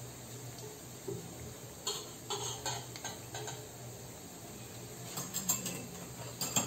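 Light metallic clinks and taps of a stainless steel pot and its lid being handled: a few around two to three and a half seconds in, and a quicker cluster from about five seconds on. Dough frying in oil sizzles faintly underneath.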